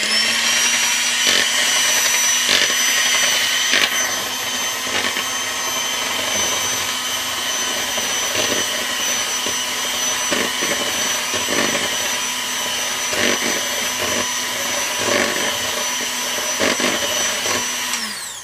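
Electric hand mixer running at one steady speed with a constant whine, its beaters whipping egg yolks and melted butter in a plastic bowl, with occasional clicks. It switches off and winds down near the end.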